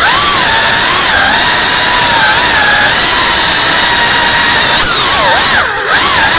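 Tiny whoop FPV drone's motors whining at high speed, the pitch rising and falling with the throttle. Just before the end the sound drops away briefly and then spools back up.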